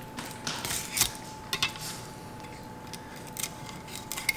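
Fillet knife cutting and scraping through a triggerfish's tough hide on a wooden cutting board: a scattering of short scratchy clicks and scrapes, the loudest about a second in.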